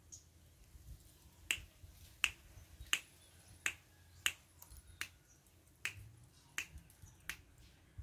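A person snapping their fingers at a steady pace to call a young spotted dove: about nine sharp snaps, one roughly every three-quarters of a second, starting about a second and a half in.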